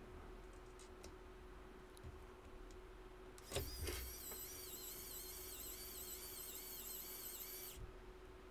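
Pen-style electric screwdriver driving an M3 × 10 screw: a thin, high motor whine that starts with a click about three and a half seconds in, wavers up and down in pitch as it works, and stops about four seconds later.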